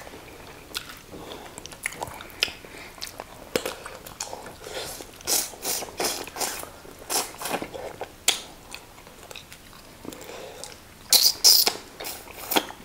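Close-up eating sounds of two people chewing and biting chicken on the bone: irregular wet clicks and short crunchy bursts, with a louder cluster near the end.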